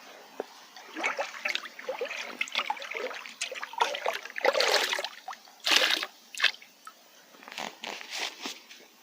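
Cooking pot being dipped into lake water and filled: irregular sloshing and splashing, loudest about six seconds in, with a few smaller splashes near the end.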